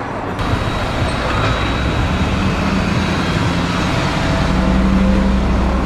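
Mercedes-AMG car engine running at low, steady revs with a low rumble that grows a little louder towards the end, over road noise.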